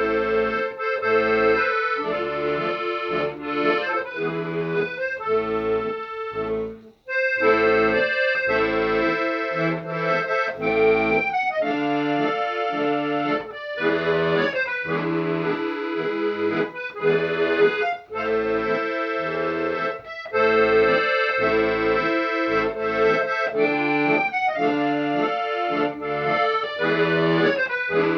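Accordion music with a steady rhythm of bass notes and chords, breaking off for a moment about seven seconds in.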